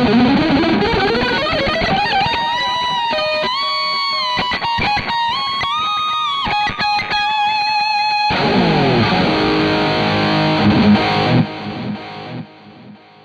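Electric guitar, a Gusta GTL with an Astro Burning Blade mini-humbucker in the bridge, played through a high-gain distorted tone. It opens with a fast ascending run, then holds high lead notes with bends and vibrato. About eight seconds in it breaks into fast descending runs, and the last notes fade out near the end.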